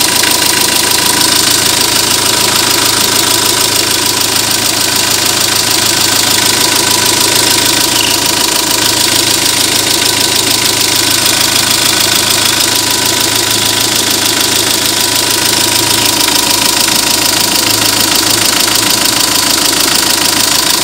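Renault 1.9 dCi diesel engine idling with a fast, steady clatter. It is the noise that the owner says appeared after he changed the engine oil from Elf to Shell.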